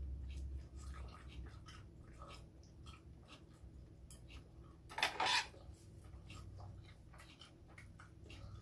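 Utensils clicking and tapping on dishes during a meal, with small scattered clicks throughout and one brief louder clatter about five seconds in.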